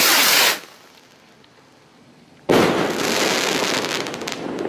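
A firework rocket launching with a short rushing hiss, then about two seconds later bursting in the air with a sudden bang followed by sustained crackling.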